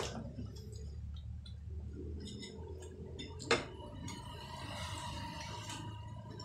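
Close-up eating sounds: a glass knocks down onto a table at the start, a spoon clicks against a bowl about three and a half seconds in, with small wet mouth and slurping noises of soup being eaten in between.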